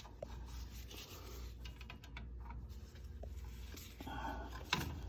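Small scratching and rubbing with scattered light clicks from handling wires and screw terminals while wiring a furnace aquastat relay box, with a sharper click near the end. A low steady hum runs underneath.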